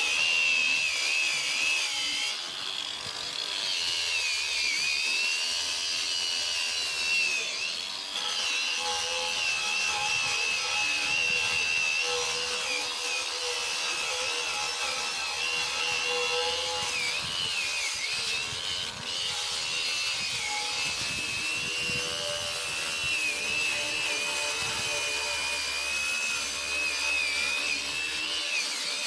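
Ryobi ONE+ 18-volt 4-1/2 in. cordless angle grinder running continuously under load, its high whine wavering and dipping briefly as it is pressed into the work.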